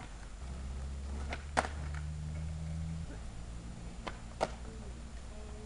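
Skateboard tail popping and landing on asphalt: two sharp clacks about a second and a half in, and another pair about four seconds in. A low steady hum sits under the first half.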